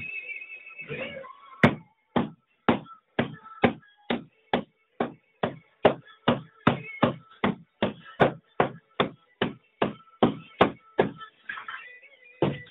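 Axe blade chopping into a wooden doorjamb to chisel out a recess: rapid, even strikes about two a second. They pause briefly near the end, then start again.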